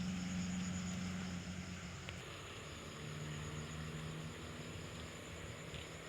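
A motor's low hum, loudest at first, dropping in pitch about two seconds in and then fading a little, over steady high insect chirping.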